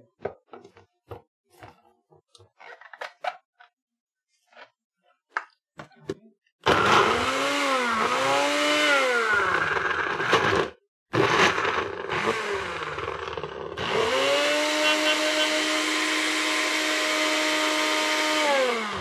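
Countertop blender run in three loud bursts with short stops between, after a few small clicks and knocks. Its motor pitch sags and recovers twice in the first burst as it labors on a thick peach mixture that is not blending.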